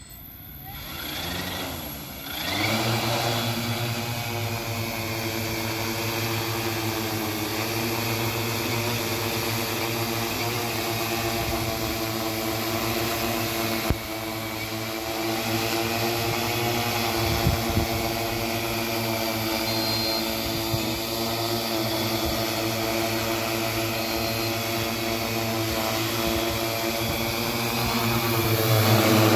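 Large multirotor drone's electric motors and propellers spinning up over about two seconds at lift-off, then a steady hovering hum with several pitched tones, growing a little louder near the end.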